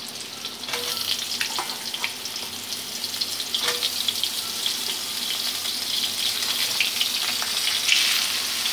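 Sliced ridge gourd being dropped into a hot kadai of potatoes frying in mustard oil: the oil sizzles, growing louder over the second half, and a few light knocks ring out as pieces land on the metal pan.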